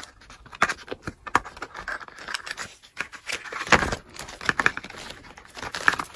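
A stiff paperboard product box being opened by hand: flaps unfolding and the inner box sliding and scraping against the carton, a run of small clicks and scratches with one louder knock a little past halfway.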